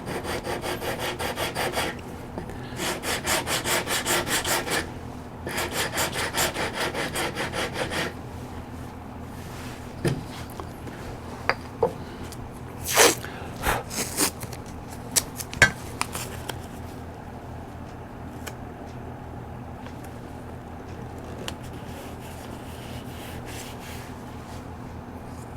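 Sandpaper rubbed by hand over wood in quick back-and-forth strokes, in three bouts, shaping a hand-carved repair piece to blend into the original profile; then a few light taps and knocks.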